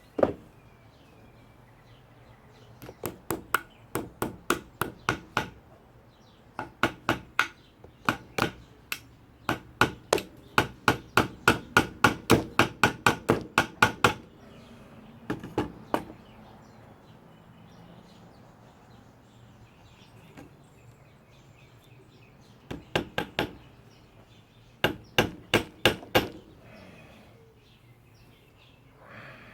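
A hammer driving small nails into wood: several runs of quick, sharp strikes, the longest a steady run of about four blows a second, with pauses between runs.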